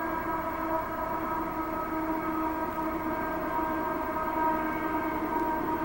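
Diesel locomotives of a freight train working out of sight, heard as a steady droning hum with one clear pitch and a ladder of overtones over a low rumble.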